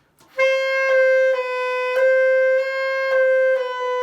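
Saxophone holding one note, re-attacked a few times, with a slight dip in pitch near the end: a ghost-note effect, the tone bent down about a quarter tone by pressing keys and then returning to its natural pitch.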